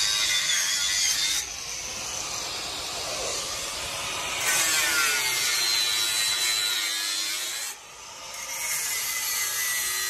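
Handheld angle grinder with a cutting disc cutting steel mesh: a loud grinding hiss over the motor's whine, which wavers in pitch as the disc bites. It eases off briefly near the end, then cuts again.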